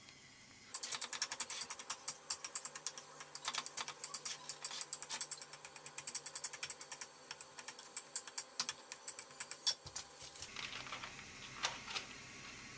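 Knife tapping and scraping rapidly against a glass baking dish while crushing steamed baby potatoes: a dense run of quick clicks that stops about ten seconds in, followed by a few separate clicks.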